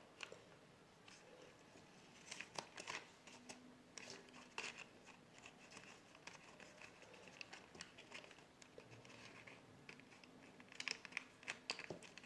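Faint, scattered clicks and scratchy rustling from small plastic hair dryer parts and wires being handled and fitted back into the housing.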